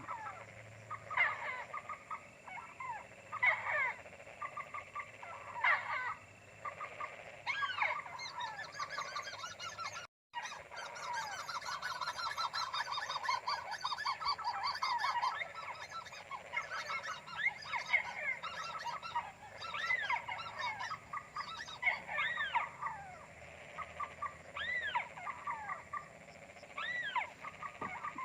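Chorus of night-time animal calls: many short rising-and-falling calls repeating and overlapping, with a thin steady high whine beneath. The sound drops out completely for a moment about ten seconds in.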